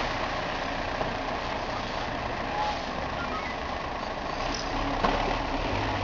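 Steady city street noise with vehicle traffic running, and a short knock about five seconds in.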